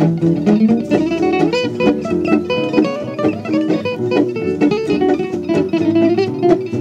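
Music: acoustic guitar playing quick runs of plucked notes over a steady lower accompaniment.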